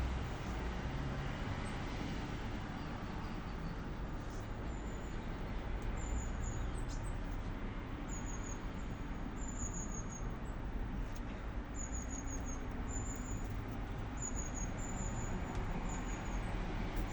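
Steady rumble of street traffic. From about four seconds in, high, short bird chirps come in quick runs of two to four.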